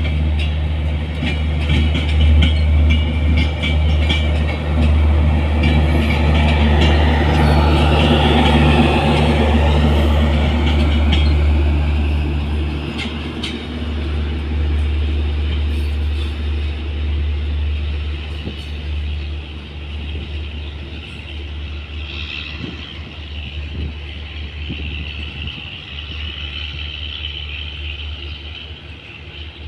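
Bangladesh Railway intercity passenger coaches rolling past close by, wheels clicking over the rail joints. From about halfway through the sound fades steadily as the last coach draws away.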